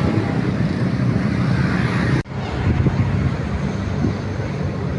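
Road traffic: a steady low rumble of passing vehicle engines, with the sound cutting out for an instant about two seconds in.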